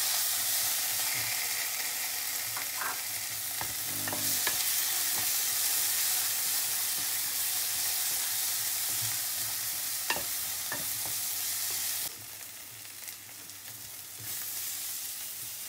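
Tomato sauce sizzling in a hot pan of fried onion and spice masala, stirred with a wooden spoon that now and then taps and scrapes the pan. The sizzling falls quieter about twelve seconds in.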